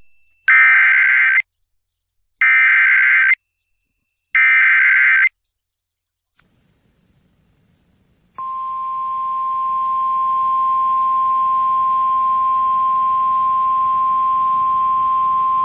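Emergency Alert System header: three bursts of digital data tones, each about a second long and spaced about a second apart. After a pause of about three seconds, a single steady attention tone starts over a faint hiss and holds. The sequence signals an incoming severe thunderstorm warning.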